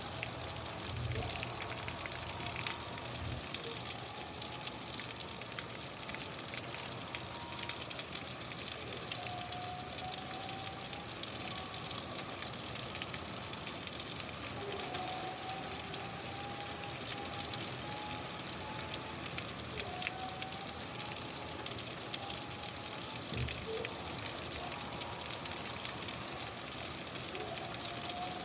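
Steady rain falling, an even dense hiss throughout, with a low rumble in the first three seconds. Faint brief whistle-like tones come and go over the rain, and there is a single dull thump about 23 seconds in.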